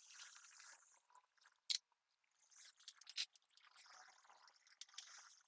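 Faint scraping and rustling of tools and metal parts being handled during engine work, with a few sharp clicks, the loudest a little under two seconds in and about three seconds in.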